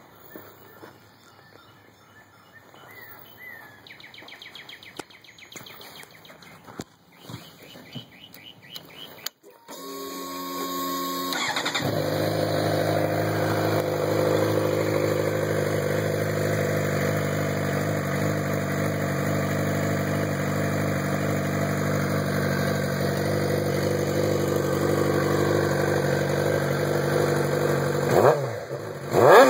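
Suzuki GSX-R600 inline-four motorcycle engine started: after some faint knocks, the starter cranks briefly and the engine catches about twelve seconds in. It then idles steadily through its exhaust and is given two quick throttle blips near the end.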